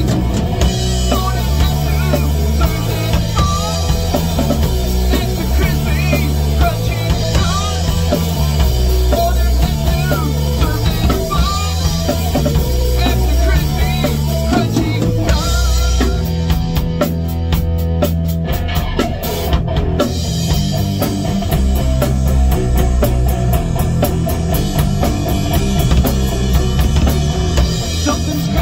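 Rock band playing live: electric guitars over a drum kit with bass drum, loud and continuous. About halfway through, the drumming turns into fast, evenly spaced cymbal strokes.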